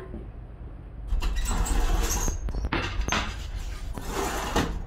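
Rushing, scraping noise, coming in several waves from about a second in, as a pizza is slid off a wooden peel onto a hot baking stone in an open electric oven, over a steady low rumble.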